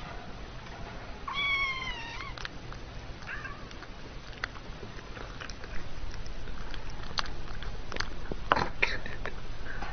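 A kitten meows: one high, drawn-out mew about a second in that drops in pitch at its end, and a fainter short mew soon after. Later come scattered light clicks, taps and rustling.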